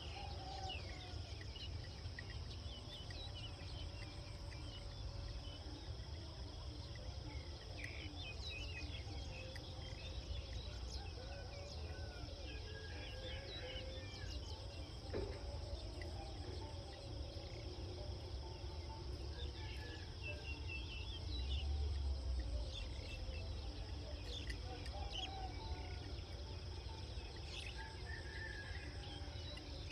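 Rural outdoor ambience: a steady high insect drone with scattered short bird chirps over a low rumble. The rumble swells briefly about two-thirds of the way through.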